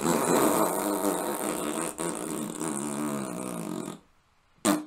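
A person blowing a long, fluttering raspberry to imitate a fart, wavering in pitch. It stops about four seconds in, and a brief sound follows near the end.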